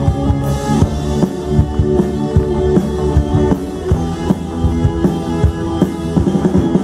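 Live band of electric guitars, bass, drum kit and keyboard playing a pop-rock song through a PA, with regular drum hits under sustained notes.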